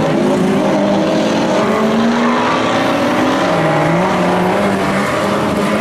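Several stock-car engines running at once. Their pitches rise and fall, overlapping, as the cars accelerate and lift off.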